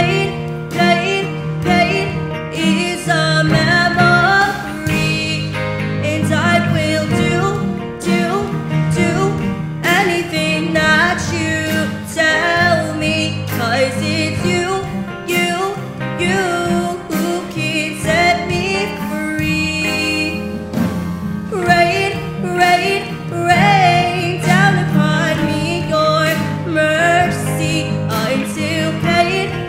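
A child singing a slow musical-theatre song solo over instrumental accompaniment with guitar.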